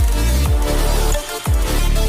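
Electronic dance music with a heavy dubstep-style bass, falling bass sweeps about twice a second, and a brief drop-out just over a second in.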